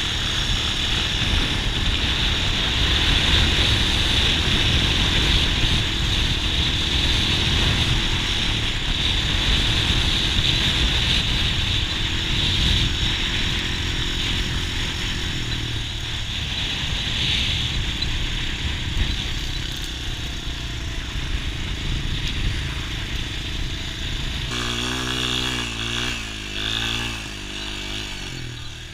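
Quad ATV engine running at speed across sand, over a dense low rumble. From about 24 seconds in, the engine's pitch wavers up and down as the rider slows, and the sound fades near the end.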